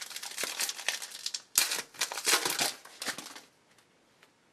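Trading-card pack wrapper crinkling as it is handled, then torn open with a loud rip about a second and a half in.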